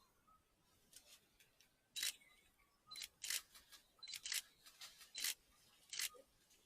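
Camera shutter clicks, about eight short sharp clicks fired irregularly, some in quick pairs, from about two seconds in.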